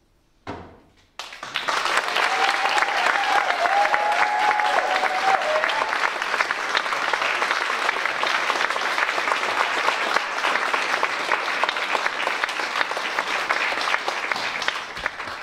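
An audience applauds and cheers, starting about a second in after a single short stroke, and thins out near the end. From about two seconds in, a high wavering cheer rises over the clapping for a few seconds.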